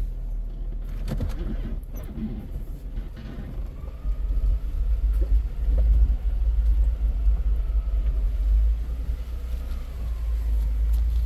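Off-road vehicle driving slowly along a rough dirt trail, with a steady low engine and tyre rumble that grows louder about four seconds in.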